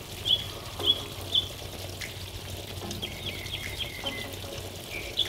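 Small birds chirping in short, high, repeated notes, about two a second at first and again in a quicker run near the end, over a steady trickle of water from a garden fountain.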